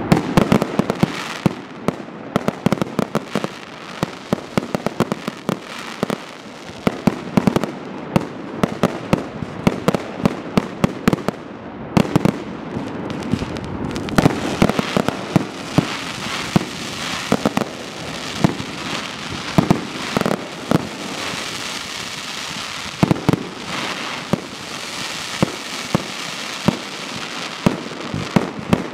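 Fireworks display: aerial shells and firecrackers going off in rapid, irregular bangs, several a second, over a continuous crackling hiss that grows denser in the second half.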